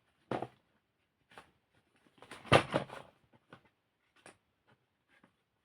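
Chalk crumbling and crunching in a handful of irregular crackly bursts, the biggest cluster about halfway through, with short silent gaps between them.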